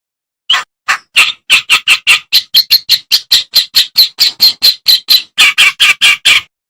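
Kerak basi reed warbler singing: a fast run of short chattering notes, about four or five a second, that starts about half a second in and stops abruptly near the end.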